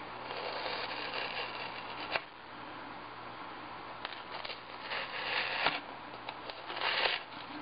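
Single-edge razor blade cutting through foam core board on a wooden cutting board: short scraping, crunchy strokes with a sharp click about two seconds in and louder strokes near the end.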